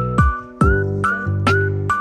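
Background music: a steady beat of about two drum hits a second under held chords and a light, high melody.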